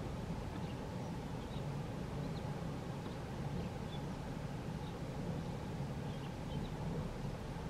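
A distant high-speed boat running flat out: a steady low engine drone with no change in level, while faint short bird chirps come and go above it.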